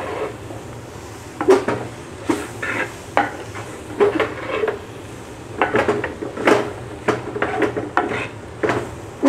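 Spatula scraping and knocking against the inside of an unglazed clay pot as a dry chicken and grated-coconut stir-fry is stirred and pressed to break it up, in irregular strokes.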